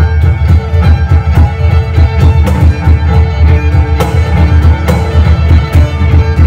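Live violin, cello and cajón trio playing an upbeat piece. A bowed violin melody runs over the cello, driven by quick, steady hand strikes on the box drum.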